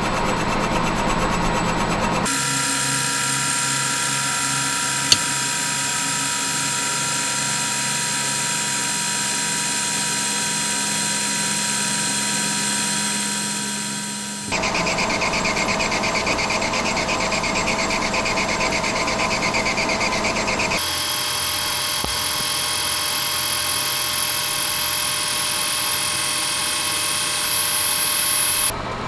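Metal lathe running with a carbide tool cutting a spinning metal tube. The machining sound changes abruptly three or four times, with one sharp tick about five seconds in.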